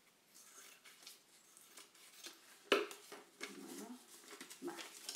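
Scissors snipping paper and small sheets of paper being handled and rustled, with one sharper click about halfway through.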